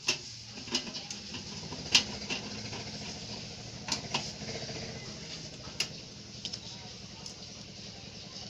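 Scattered clicks and light knocks of computer parts being handled and fitted into a desktop system unit's case, the loudest about two seconds in.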